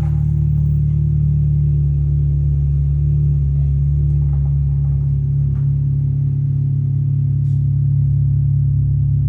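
Infiniti QX60 engine idling steadily.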